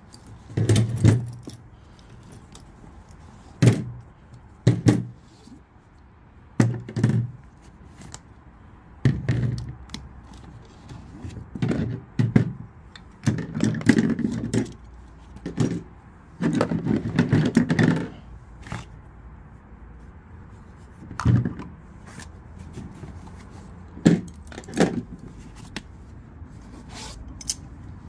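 Metal hand tools (pliers, screwdrivers and wrenches) being pulled out of a fabric tool bag and set down on a table: irregular clinks and knocks, with a longer stretch of rummaging clatter in the middle.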